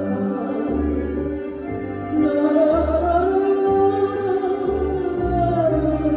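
A woman singing a slow song in long held notes, with instrumental accompaniment and a bass line moving in even steps, played back through a television.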